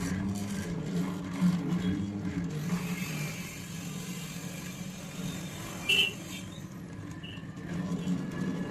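Stepper motors of a DIY CNC pen plotter driving the pen carriage, a steady whirring hum whose pitch shifts as the axes change speed and direction. A brief sharp blip about six seconds in.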